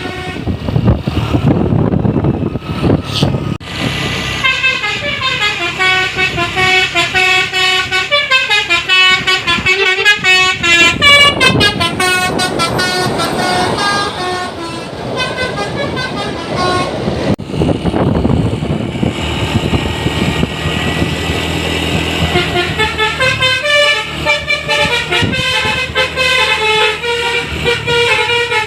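Telolet basuri horns on passing buses playing quick multi-note horn melodies over the rumble of the buses' engines. The tunes ease off about two-thirds of the way through and start up again near the end.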